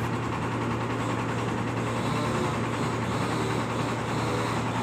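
Stationary diesel engine running steadily, driving the blower fan of a corn bed dryer, with an even hum.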